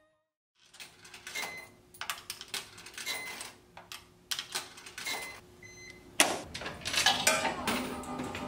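Quarters clinking and a coin-op washer's coin slide clicking as coins are fed in, over a faint steady hum. A little after six seconds comes a loud clunk, then busier clatter as coins go into a claw machine's slot.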